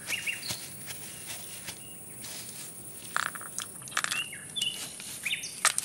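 Cartoon outdoor ambience: a steady high insect buzz with short bird chirps. From about three seconds in come scattered clicks and crunches of a wooden spoon scooping pebbles out of gravel.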